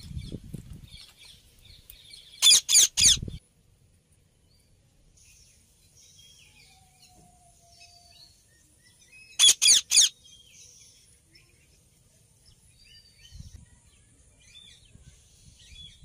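Indian ringneck parakeets screeching: two loud runs of three quick, shrill calls, about seven seconds apart, with faint chirping between them.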